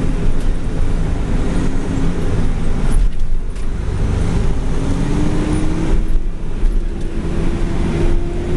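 Heavy diesel machinery running steadily during a corn silage harvest: a deep engine drone with a whine that sags early on and then climbs slowly in pitch over the last few seconds.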